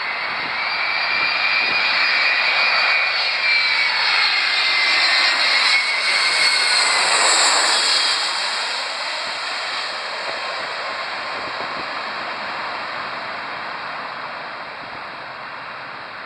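Twin-engine jet airliner on final approach with its landing gear down, passing low overhead. The engine whine and rush grow louder, are loudest about seven seconds in with the whine dropping in pitch as it passes, then fade as the jet heads away toward the runway.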